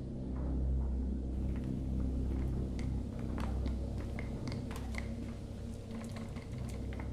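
A low steady drone, with light, irregular footsteps clicking on a hard floor from about two and a half seconds in as people walk down a hallway.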